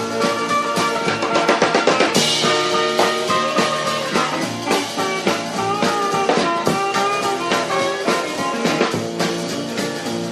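Instrumental break of a rockabilly record, with a drum kit keeping the beat under instrumental lines and no singing.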